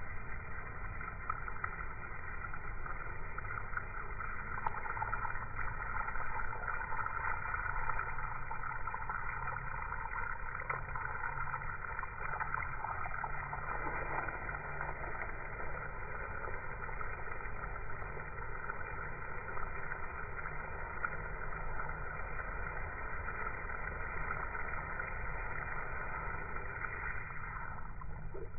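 Garden hose spray pattering onto a lawn, slowed down to slow motion, so it comes through as a steady, low, dull rushing noise.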